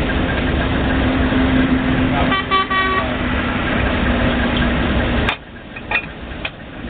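Failing 1250 drilling rig running loudly and steadily under a low hum. A short horn-like tone sounds for under a second about two seconds in. Just after five seconds in the noise cuts off suddenly, leaving a much quieter background with a few clicks.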